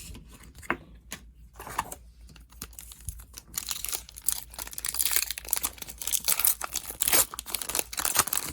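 Hockey card pack wrapper crinkling and trading cards being handled and shuffled: scattered light clicks at first, then a dense crackly rustle from about three and a half seconds in.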